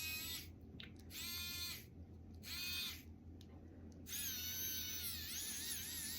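Small electric screwdriver whining in four short bursts as it drives and backs out tiny screws in a strap's metal end cap, its pitch sagging and recovering under load.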